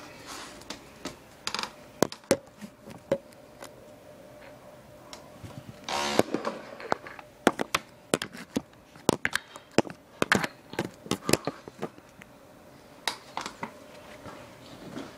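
Irregular sharp clicks and knocks of an iPod touch and its hard plastic battery case being handled, with a short rustle about six seconds in.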